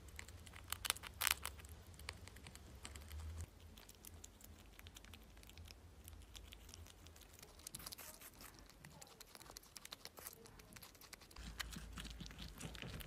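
A grey squirrel chewing and nibbling food held in its paws: faint, quick, crunchy clicks.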